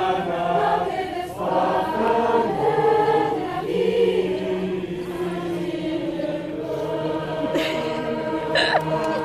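Large youth choir singing in German, moving through short held chords and then sustaining one long chord.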